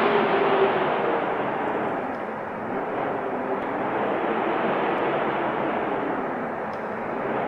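Wind blowing steadily in gusts, a low rushing noise that swells and eases, with a louder gust dying away in the first two seconds.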